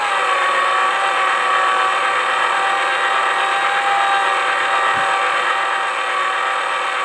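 The small electric motor of a toy pottery wheel running at steady speed, giving an even, high-pitched whine.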